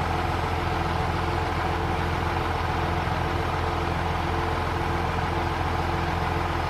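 Kässbohrer PistenBully snowcat's diesel engine running with a steady, even drone.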